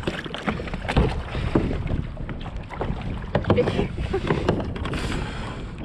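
Kayak paddles splashing in irregular strokes and water slapping the hull on a choppy, windy lake, with wind buffeting the microphone.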